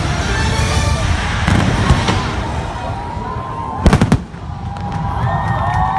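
Fireworks show: aerial shells bursting and crackling over a rumble of launches. A cluster of sharp, loud bangs comes about four seconds in, and a wavering high tone comes in after it.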